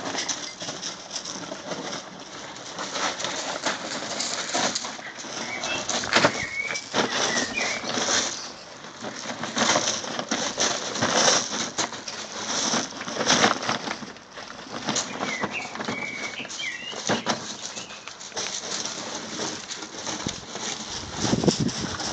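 Gravel crunching and scraping under a black Labrador puppy's paws, mixed with a nylon pop-up garden bag rustling and dragging over the stones as the puppy noses into it and pulls it by its handle. Irregular, with many short clicks and scuffs; a few short high chirps come twice.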